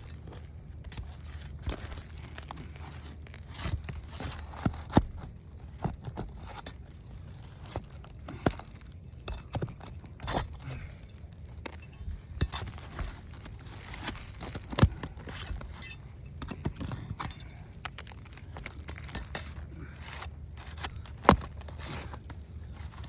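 Metal pry bar clinking and scraping on roof shingles as they are worked loose, with scattered sharp knocks and crackles from the very brittle shingles.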